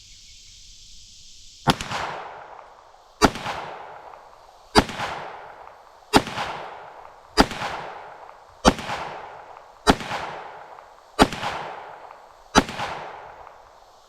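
Ruger SR22 .22 LR pistol fired nine times at a steady pace, about one shot every 1.3 seconds, each sharp crack trailing off in a short echo. It is loaded with CCI Stinger 32-grain rounds, which are hotter than standard .22 LR.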